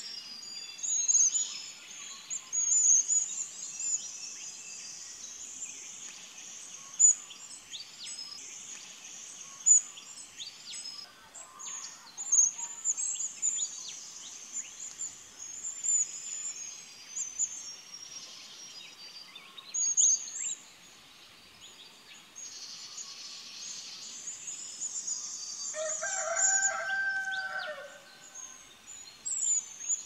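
Morning chorus of many wild birds chirping and twittering in quick, high calls. Near the end, one lower and longer call lasts about two seconds.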